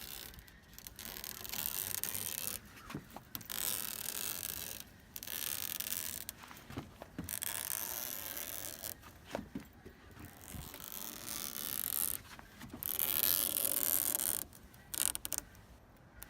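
Rasping scrapes of a knife trimming excess metal screen mesh along a screen-door frame. The strokes last one to two seconds each with short pauses between them, and there are a few small clicks.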